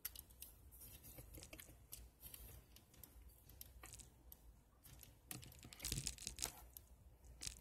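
Plastic parts of a transforming robot action figure being handled and folded: faint clicks and rubs, with a cluster of louder clicks about five to six and a half seconds in and another near the end.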